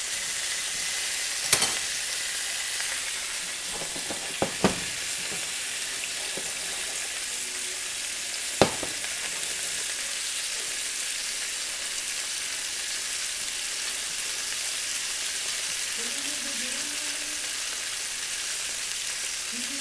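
Risotto al guanciale sizzling steadily in its pan on lowered heat, with a few sharp knocks of a utensil against the pan, the loudest about nine seconds in.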